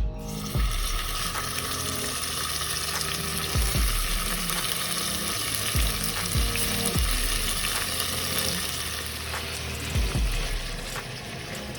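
Vegetables frying in oil in a hot pan, sizzling steadily, with a few low thumps as they are stirred.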